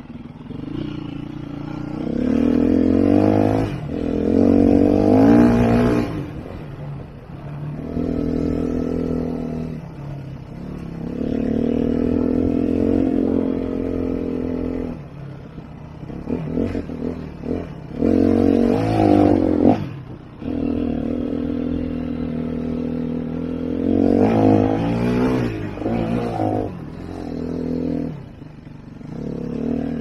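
Sherco 3.0i F enduro motorcycle's four-stroke single-cylinder engine under way on a dirt trail, revving up in bursts, holding steady throttle for several seconds at a time and dropping back to lower revs between them.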